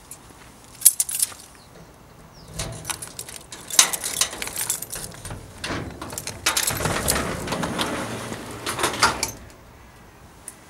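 Keys jangling and clicking at a garage door lock, then the door rattling and scraping as it is pulled open.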